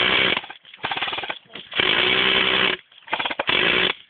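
Airsoft M134 minigun firing in short rapid bursts, a fast mechanical rattle with a motor hum under it, about four bursts of up to a second each with brief gaps between. Recorded on a mobile phone, the sound is muffled and lacks treble.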